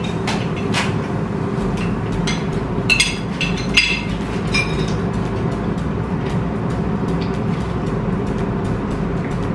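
Bright electronic dance background music runs steadily. Over it come a few short clinks and clicks of cutlery on plates, bunched around three to four seconds in.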